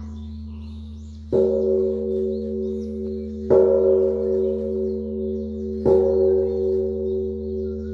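Bell struck three times, a little over two seconds apart. Each strike rings on in steady overlapping tones above a continuous low hum.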